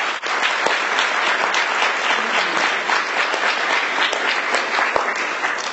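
An audience applauding, the clapping thinning out at the very end.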